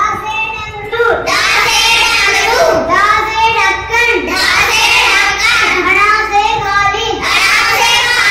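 A young boy chanting the Hindi alphabet letter by letter in a sing-song voice.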